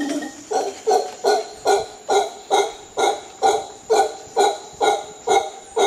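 Male mantled howler monkey calling: a drawn-out howl breaks off at the start and gives way to a steady series of short, rhythmic calls, about two a second.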